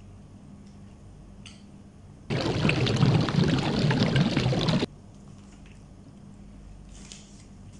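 A person drinking from a small paper cup held close to the microphone: a loud, rushing liquid sound that starts abruptly a little over two seconds in, lasts about two and a half seconds and cuts off suddenly.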